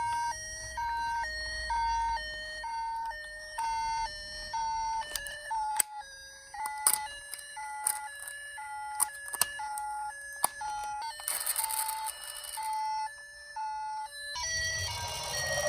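Toy ambulance minicar's electronic two-tone siren, a high and a low note alternating, each held for under a second. About five seconds in, a slightly lower two-tone siren takes over, with scattered sharp clicks, and a higher pair returns near the end.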